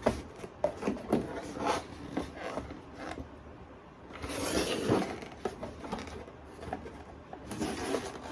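Light knocks, taps and rubbing from handling a paper-and-board craft vending machine, with a longer rustle of paper about halfway through.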